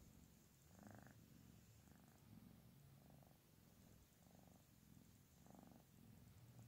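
A tabby kitten purring faintly and steadily while it is stroked on the head, the purr swelling about once a second.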